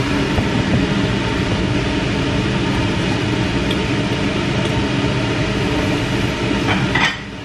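Steady machine whirring from a fan or motor, with a low hum under it. A few light clicks come near the end.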